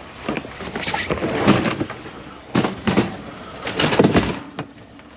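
Irregular clattering knocks and scrapes of curbside scrap being handled and shifted, in several short bursts with a sharp knock near the end.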